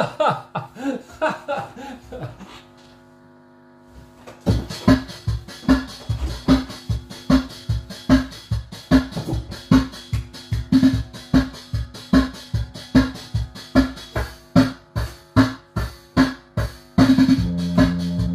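A few scattered knocks and notes, then about four seconds in an electronic rhythm-unit drum beat starts, a steady repeating pattern of kick and snare. Near the end sustained electronic organ chords come in over the beat.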